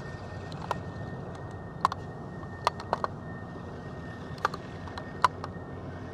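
Light rain, single drops ticking irregularly on the vehicle's body, about eight sharp ticks, over a steady low rumble.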